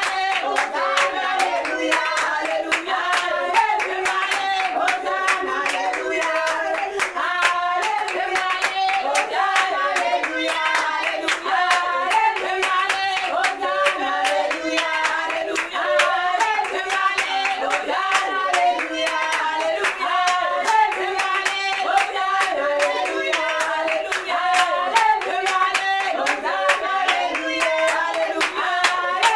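A small church congregation singing a worship song together, with steady rhythmic hand clapping keeping the beat.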